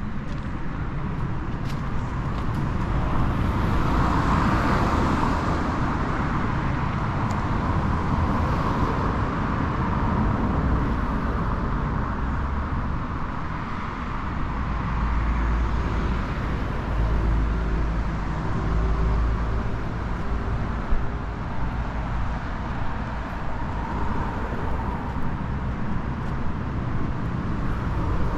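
Street traffic: cars passing one after another, swelling and fading, with a deeper low rumble about halfway through and a single sharp click later on.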